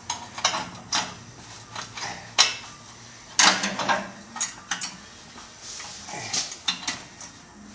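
Irregular metallic clinks and knocks of hand tools working the clamps on a car's exhaust pipe, with a longer, louder clatter about three and a half seconds in.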